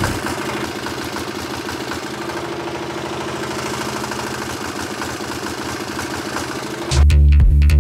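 Small single-cylinder diesel generator engine running steadily with a rapid, even beat while aerosol deodorant is sprayed into its air intake. Near the end, loud low thudding bursts take over.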